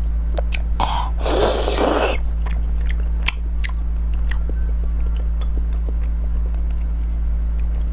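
Close-miked mouth sounds of eating soft braised pork belly. A loud, wet bite comes about a second in, followed by chewing with small clicks and smacks, over a steady low electrical hum.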